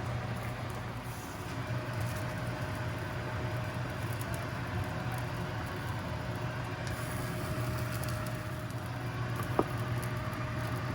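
Steady low hum with an even hiss of kitchen background noise while the curry cooks on the stove. A faint thin whine joins about three seconds in, and there is one light click near the end.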